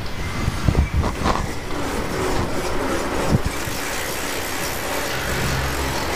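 Steed chainless shaft-drive bicycle's drivetrain running steadily as its crank is turned by hand and the rear wheel spins, with a few light clicks in the first few seconds.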